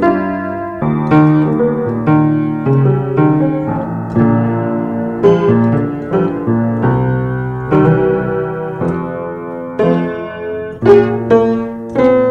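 Piano music: struck notes and chords, one after another, each dying away.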